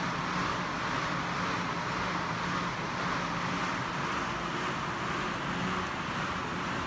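Airdyne fan bike's fan wheel spinning at a steady pace as the rider pedals and pushes the arms, a continuous rushing of air with a faint low hum underneath.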